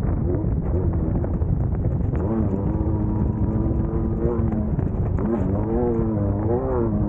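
Engine of a Class 1600 off-road race car, an air-cooled VW 1600 flat-four, running hard with its revs rising and falling again and again, over a dense rumble with scattered knocks and rattles.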